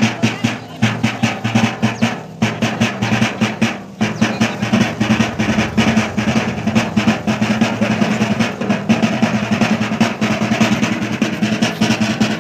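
Drums beaten in a fast, dense rhythm, the strokes running together almost like a roll.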